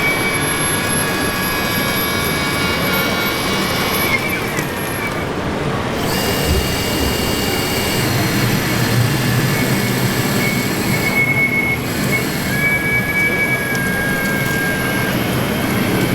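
Large-scale radio-controlled construction machine models working, their motors giving high, steady whines that stop and start again, over a continuous mechanical din.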